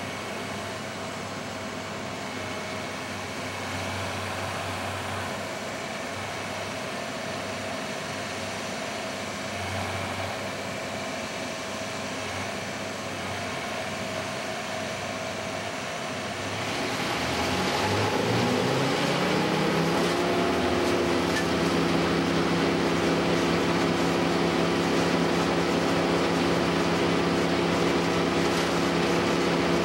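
Engine running at a low steady speed, then throttled up about halfway through, its pitch climbing for a few seconds before it holds at a louder, steady high speed.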